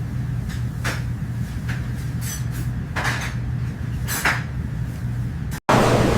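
Takeout food containers and utensils being handled: a handful of light knocks and clicks over a steady low hum. About five and a half seconds in, the sound cuts abruptly to a loud, even rushing noise.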